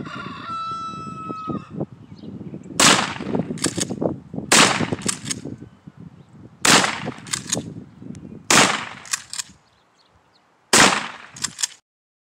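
Five gunshots from a long gun, about two seconds apart, each followed by a couple of fainter cracks. A fowl's honking call is heard just before the first shot.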